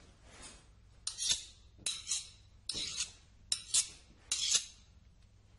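A metal blade scraped in five even strokes, about one every 0.8 seconds, each a short rasping swish.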